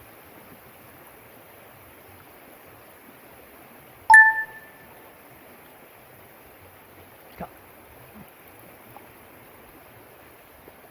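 Mountain stream flowing steadily, with one short, sharp ringing ping about four seconds in and a faint click a few seconds later.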